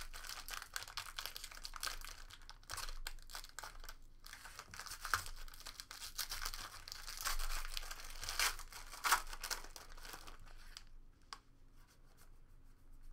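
Foil wrapper of a Score football card pack crinkling and tearing as it is ripped open by hand, with sharp crackles throughout. After about eleven seconds it falls much quieter as the cards inside are handled.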